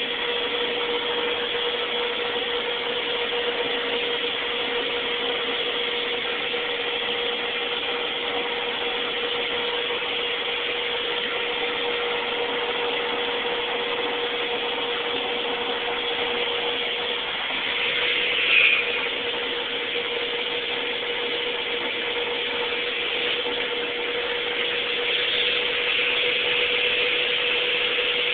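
Shop vac running steadily, a constant whine over its airflow noise, with a short louder sound about two-thirds of the way through.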